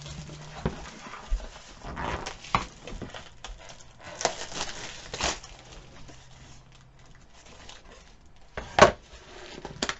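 Scattered clicks, taps and rustles of a picture frame being handled and opened at the back, with one sharp, loud click near the end.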